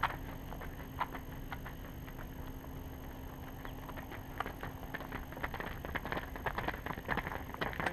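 Shoe footfalls and scuffs of athletes doing side-shuffling defensive slides on a rubberized running track. A few at first, then a quick patter of steps about five seconds in, over a steady low background noise.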